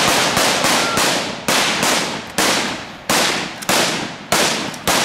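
Rifle fire: a rapid, irregular string of shots, two to four a second, each cutting in sharply and trailing off in echo.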